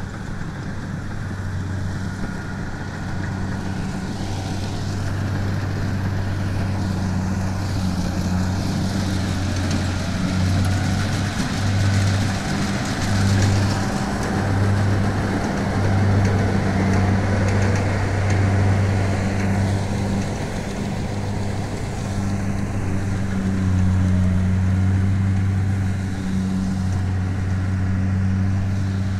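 Kubota DC70 combine harvester's diesel engine running steadily under load while cutting and threshing rice, a deep hum that swells and eases a few times as the machine moves through the field.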